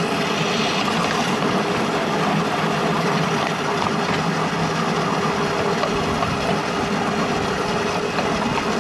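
Steady engine noise with an even hiss, holding one level throughout.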